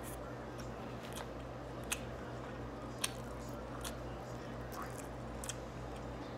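Close-up chewing of a mouthful of beef and brown rice, with wet mouth sounds and a few short sharp clicks and smacks, the sharpest about two and three seconds in. A steady low hum runs underneath.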